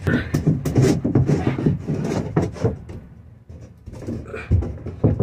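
Thin wooden beadboard panel knocking and scraping against the camper wall as it is worked into place: a run of irregular knocks and rubbing.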